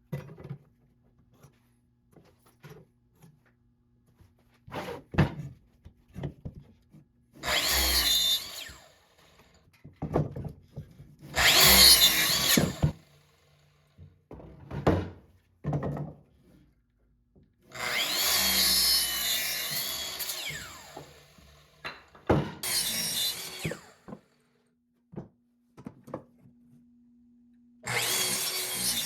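An electric power tool working oak in five short bursts, its motor pitch wavering under load. Short wooden knocks and clicks fall between the bursts.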